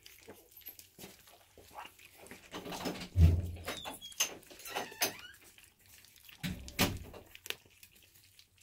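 Young corgi puppies eating soaked kibble mush from shared bowls: scattered short wet smacks, licks and clicks against the bowls, with a dull thump about three seconds in and another near seven seconds.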